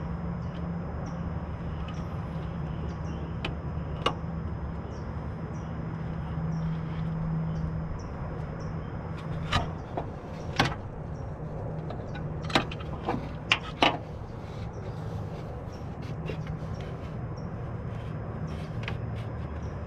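Sharp clicks and knocks of a rubber AC belt and metal pulley parts as the belt is worked over the harmonic balancer and AC compressor pulley by hand. There is one knock about four seconds in and a cluster of them about ten to fourteen seconds in, over a steady low hum.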